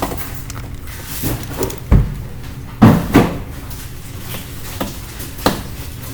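Screwdriver and hand-handling knocks and clicks on an open Dell Inspiron 3501 laptop as the M.2 slot's retaining screw is undone. A few sharp knocks, the loudest about two seconds in, then a pair about three seconds in and one more near the end.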